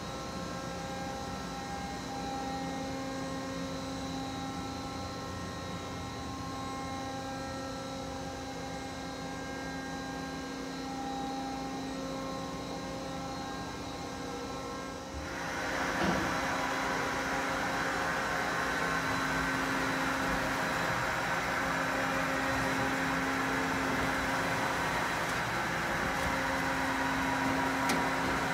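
Ikegai TU-30LL CNC lathe standing powered up, giving a steady machine hum with several steady tones. About halfway through, a louder hiss-like running noise comes in abruptly with a thump and carries on.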